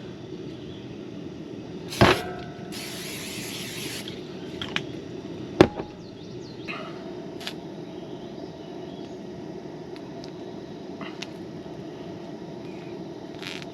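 Two sharp knocks, about three and a half seconds apart, and a hiss of about a second shortly after the first, with a few fainter clicks, over a steady low hum.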